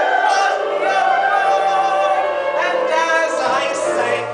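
Stage ensemble chorus singing a show tune together, on long held notes, with the phrase ending right at the close.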